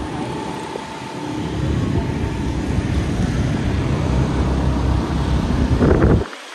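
Motorcycle riding through slow town traffic: a low, uneven wind rumble on the microphone over engine and road noise. It grows louder toward the end, then cuts off abruptly.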